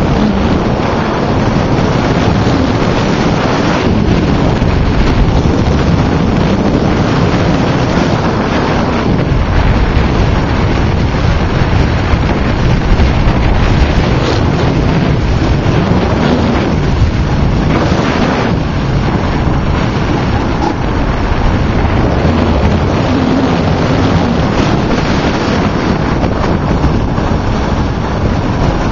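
Loud, steady wind rushing over the microphone of a camera carried by a skier going downhill, mixed with the hiss of skis sliding over packed snow.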